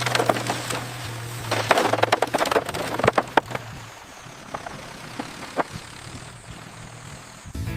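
Irregular sharp clicks and knocks, most frequent in the first few seconds, over a low steady hum that stops about two and a half seconds in.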